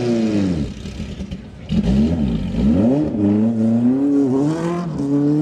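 Vintage Datsun roadster race car's engine revving: the revs fall away in the first half second, then it is blipped up and down and held at raised, wavering revs as the car moves.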